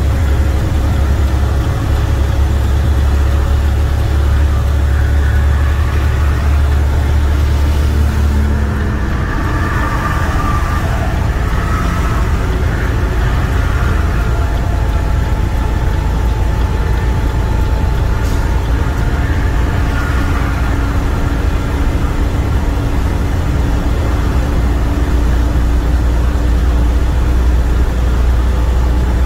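A semi truck's diesel engine, a MaxxForce 13, and its tyres on the highway, heard from inside the cab while cruising: a steady deep drone with road noise. The deepest part of the drone eases about nine seconds in and builds again near the end.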